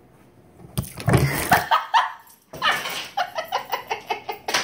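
A woman laughing hard in quick, even ha-ha pulses from about halfway through, after a short loud outburst about a second in.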